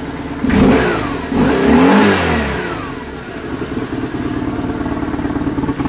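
BMW R850R's boxer twin engine blipped twice, the revs rising and dropping back, then settling to a steady idle.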